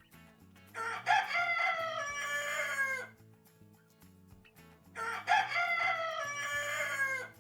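Rooster crowing cock-a-doodle-doo twice, each crow about two seconds long.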